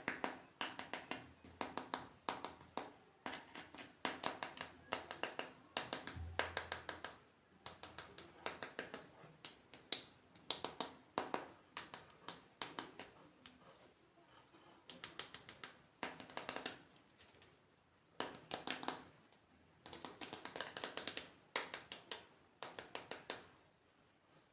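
Hands handling plastic toys and packaging: rapid plastic clicks, taps and crinkles in spells of a second or two, with short pauses between.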